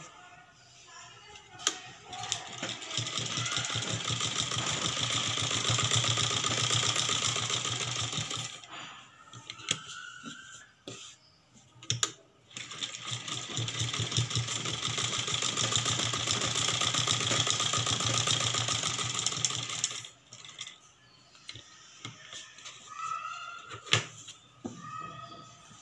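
Domestic sewing machine running in two long runs of stitching, about six and seven seconds each, as a turned blouse piece is topstitched. Short sharp clicks sound in the pauses.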